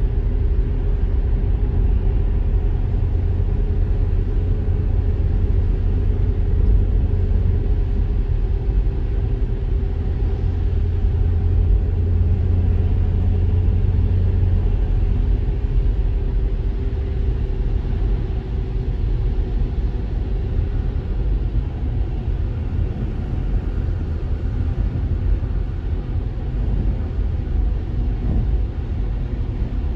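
Steady low rumble of a Mercedes-Benz car driving on a rain-wet road, heard from inside the cabin: road and tyre noise with a faint steady hum.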